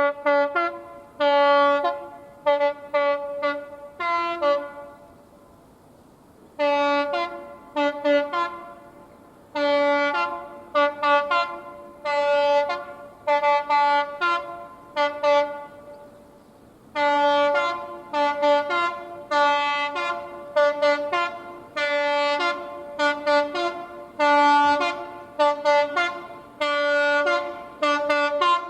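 British train's two-tone horn sounded in rapid runs of short blasts, switching back and forth between its high and low notes, in phrases separated by brief pauses.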